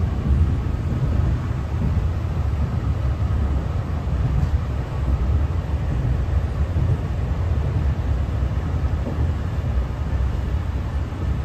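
Steady low running rumble heard inside the passenger saloon of a Translink NIR Class 3000 diesel multiple unit travelling along the line, with wheel and track noise and the underfloor diesel engine blended together.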